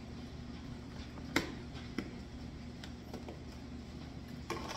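A few sharp clicks and taps from objects being handled, the clearest about a second and a half in and another half a second later, over a steady low hum in the room.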